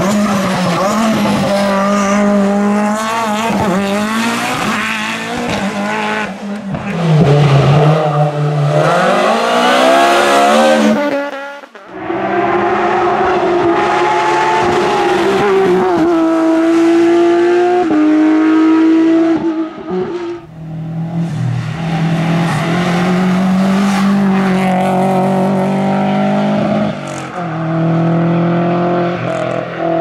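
Several hillclimb racing cars, among them a Lancia Delta-bodied special and a Porsche 911 GT3 Cup, driven hard one after another. Each engine revs high and drops in pitch at every upshift. The sound cuts abruptly from one car to the next.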